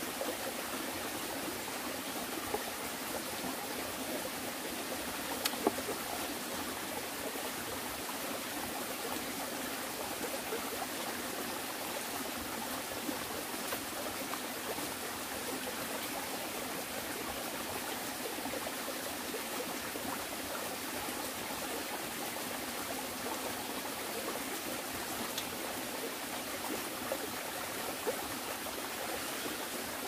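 Mountain stream running over rocks: a steady rush of water, with a few faint clicks over it.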